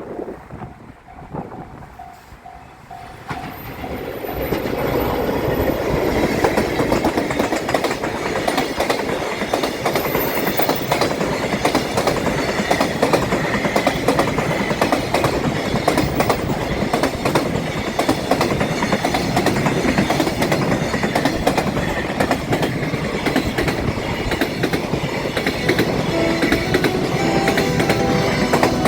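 A train passing close over a level crossing, its wheels clattering over the rail joints. The noise builds quickly about three to four seconds in and stays loud as the long train keeps rolling past.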